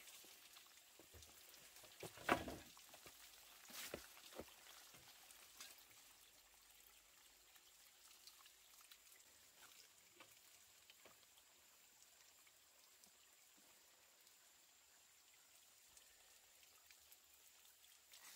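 Near silence with a light hiss, broken by a few sharp knocks and cracks: the loudest about two seconds in, a few smaller ones around four seconds, then faint scattered ticks.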